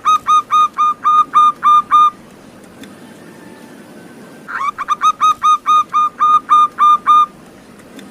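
Zebra dove (perkutut) song: a rapid series of short, clipped coos, about four a second, in two bouts. The first runs for about two seconds, and the second starts about four and a half seconds in.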